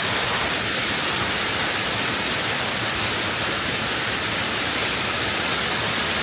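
Waterfall's falling water making a steady rushing hiss, even and unbroken.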